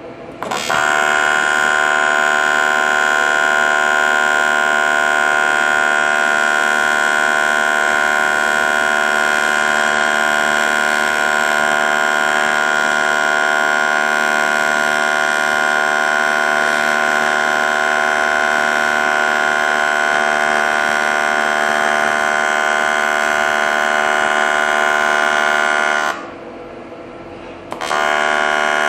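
Electric power tool running at a constant speed with a high, steady whine, used to grind and sand a wheel rim; it stops about 26 seconds in and starts again about two seconds later.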